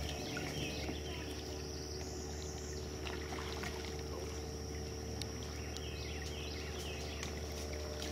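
Steady outdoor ambience: a constant high-pitched insect drone over a steady low hum, with a few short bird chirps.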